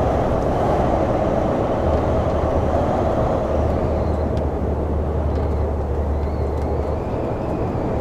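Steady engine drone and road noise inside an articulated lorry's cab while it drives along an open road.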